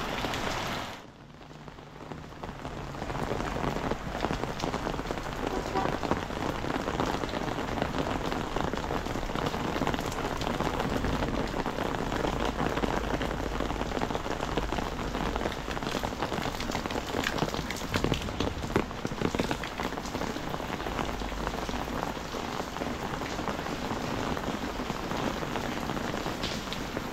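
Heavy rain falling steadily onto a wet paved alley, an even hiss of drops with occasional sharper drop hits. It briefly drops in level for about two seconds, about a second in.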